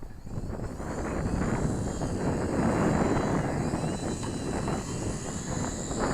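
Twin small electric motors and propellers of a micro RC P-38 model plane whining steadily, growing louder about a second in, over wind rumble on the microphone.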